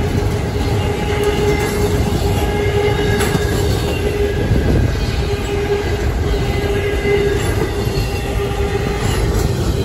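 Double-stack intermodal freight train rolling past at high speed, a loud steady rumble of wheels on rail with a thin steady tone coming and going above it.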